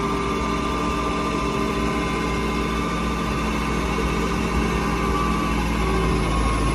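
New Holland 7740 tractor's four-cylinder turbocharged diesel engine running steadily as the tractor drives, heard from inside the cab.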